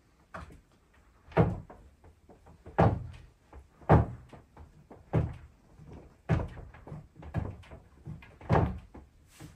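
A series of heavy thuds and bangs in an old wooden house, about one every second at uneven spacing: the racket the investigator takes for something unseen moving about.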